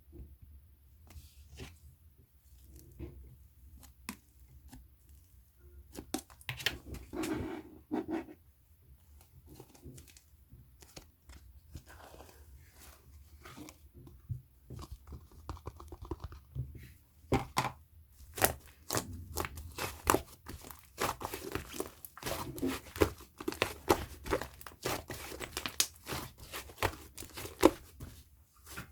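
Jiggly slime being squished and stretched by hand, making sticky popping and crackling clicks, sparse at first and coming thick and fast for the second half.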